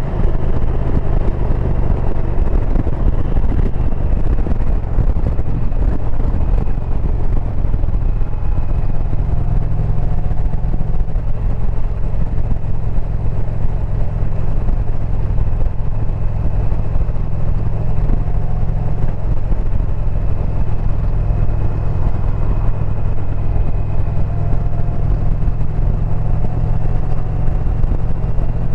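2022 Indian Pursuit's liquid-cooled PowerPlus V-twin running at a steady cruise under way, with wind and road noise over it. The low engine note grows a little stronger about nine seconds in.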